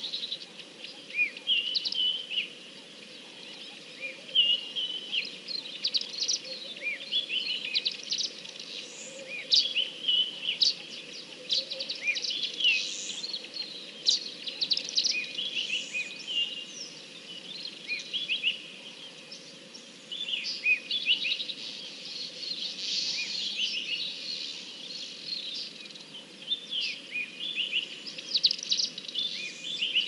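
Wild songbirds chirping and calling together, a dense run of short high chirps and quick rising and falling whistles that overlap throughout, over a steady background hiss.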